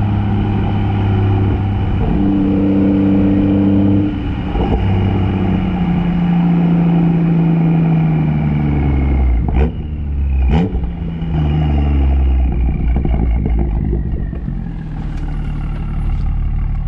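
BMW M140i's turbocharged 3.0-litre inline-six, breathing through an Akrapovic downpipe and Ego X exhaust, its note stepping in pitch through the gears and then falling away off the throttle. About ten seconds in there are two sharp pops, and near the end a few lighter crackles: the overrun burbles of the MHD Stage 2 tune.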